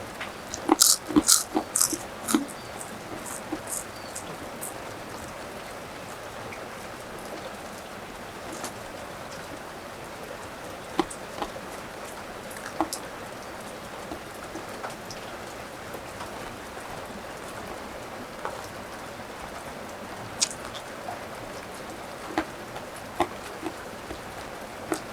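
Steady rain falling, an even hiss. A quick run of crisp crunches in the first couple of seconds and a few single clicks later on come from people eating, biting into crunchy food such as crackers.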